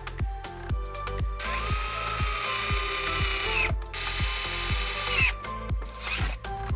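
Cordless drill boring holes through a plastic dirt-bike front fender. It runs twice, about a second and a half in and again around four seconds in, and each time the motor whine rises and then winds down. Background music with a steady beat plays throughout.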